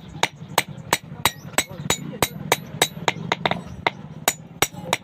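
Blacksmith's hand hammer striking metal on an anvil in a steady rhythm, about three blows a second, each blow ringing briefly. A steady low hum runs underneath.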